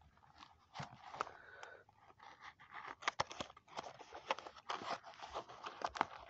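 A small cardboard toy-car box being worked open by hand: faint, irregular scrapes, taps and crinkles of card and plastic packaging, growing busier about halfway through.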